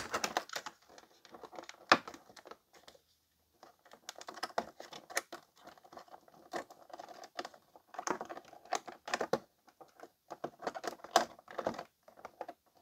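Clear plastic blister packaging crinkling and crackling as an action figure is worked out of it. There are irregular sharp clicks, with a brief pause about three seconds in.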